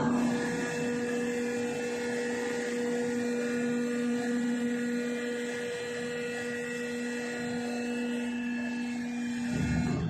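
Motor drive of an automatic garbage-bin washing machine running with a steady hum as its bin cradle and arms move; it starts suddenly and stops just before the end.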